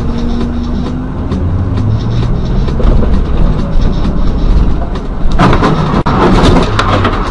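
Steady rumbling vehicle noise in motion that turns louder and harsher about five seconds in, with a momentary break about a second later.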